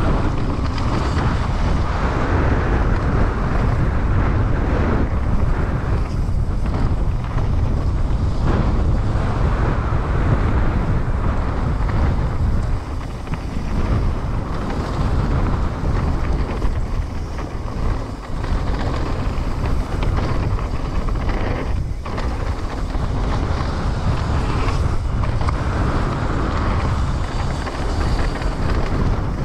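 Wind buffeting the action camera's microphone over the steady rumble of tyres on a dirt trail, as a Trek Slash 9.9 enduro mountain bike descends at speed, with frequent small knocks from the bike and trail.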